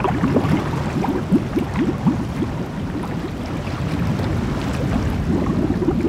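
Underwater water sound: a dense, continuous bubbling and gurgling, many short rising blips over a low rumble.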